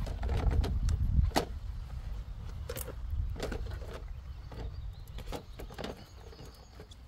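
Scattered sharp clicks and knocks, with a heavy low rumble for about the first second that then dies away.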